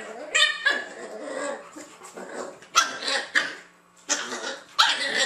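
A large white shepherd-type dog and a small puppy play-fighting, making a run of about six short, sharp barks and yips with growling between them.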